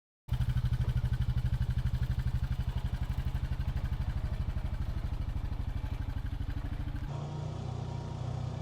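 Honda Pioneer 520 UTV's single-cylinder engine running with a fast, even pulse. It cuts in abruptly just after the start, and about seven seconds in it turns duller as the higher sounds drop away.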